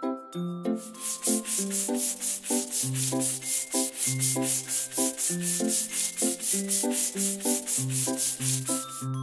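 Cartoon paintbrush sound effect: a quick, regular scrubbing of brush strokes, about four a second, starting about a second in. Under it runs children's background music with repeated plucked notes and a bass line.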